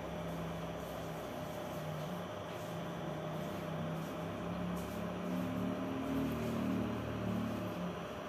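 Steady mechanical hum and hiss with a faint steady whine. A low wavering drone grows a little louder past the middle, then eases near the end.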